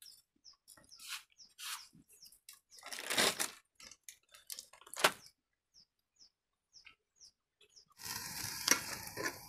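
Crinkling of a plastic packet being handled, in several short bursts, the loudest a little past three seconds and at five seconds, with faint high chirps of a small bird between. About eight seconds in, steady sizzling of vegetables frying in a pot over a wood fire.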